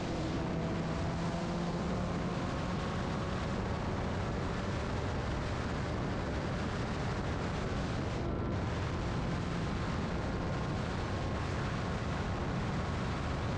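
Wind rushing over the microphone of a Benelli TNT 300 motorcycle ridden at high speed, with its parallel-twin engine droning through an SC Project exhaust underneath. The engine note rises slowly in pitch as the bike accelerates from about 110 to 140 km/h.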